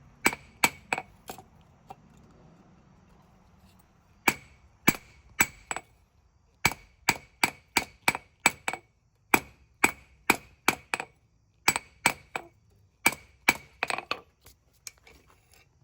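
Hand hammer striking a hot spring-steel knife blade on an anvil, in runs of about three blows a second. Each blow gives a sharp, briefly ringing clang. There is a pause of a few seconds after the first run.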